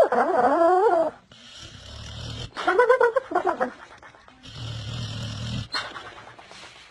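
A dog snoring in a run of breaths, each about a second long. Some come out as wavering pitched tones and others as rough, rasping breaths with a low rumble. A short click follows near the end.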